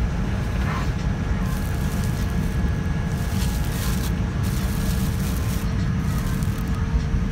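Steady low rumble and hum of a Boeing 787-9 airliner cabin, with the plastic bag around a seat blanket crinkling under a hand in patches, mostly between about one and a half and four and a half seconds in.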